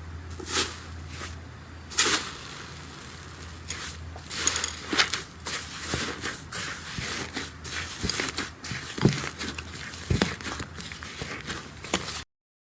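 Slime being squeezed and poked by hand, making irregular sticky crackles and pops over a low steady hum. The sound cuts off abruptly near the end.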